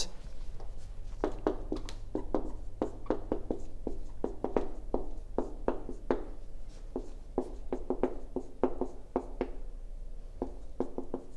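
Marker pen writing on a whiteboard: a run of short, irregular strokes and taps, with a steady low hum underneath.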